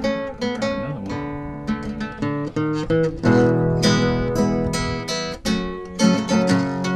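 Background music: an acoustic guitar strummed and picked, with clearly plucked notes and chords.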